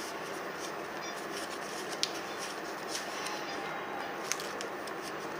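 Paper rustling and crackling as hands fold and crease a paper origami model, with a few crisp crinkles about two and four seconds in, over a steady background hiss.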